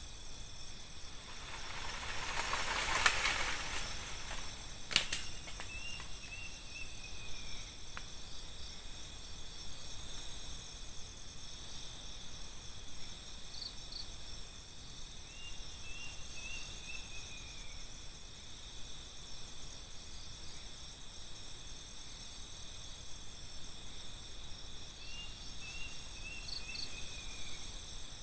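Night forest insect chorus, crickets and other insects trilling steadily at several high pitches, with a short run of falling chirps from a calling animal about every ten seconds. A brief swell of whooshing noise about three seconds in and a sharp click a couple of seconds later are the loudest sounds.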